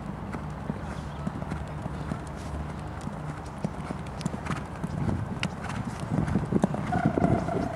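A horse's hoofbeats thudding on the sand of a riding arena, an uneven run of soft thuds that gets louder in the second half. A held high call starts near the end.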